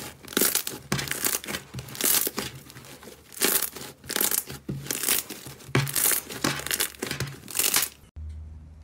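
Green slime being squeezed and kneaded by hand, crackling and popping with each press, almost two presses a second. Just before the end it gives way to a low, steady engine hum.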